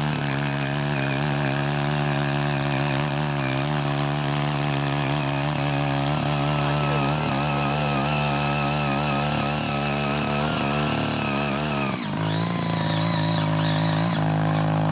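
CY80 mini garden tiller's small engine running steadily under load as its rotary tines churn through weedy soil. About twelve seconds in, the engine note dips for a moment and then settles slightly higher.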